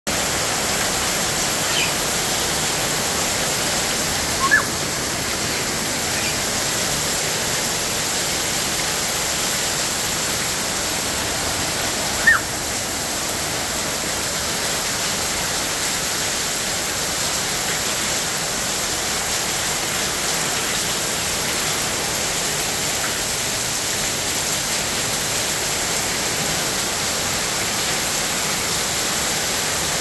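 Heavy rain pouring down steadily on roofs, aviary mesh and garden plants, with water running off the roof edges. A few brief bird chirps break through, the loudest about four and a half and twelve seconds in.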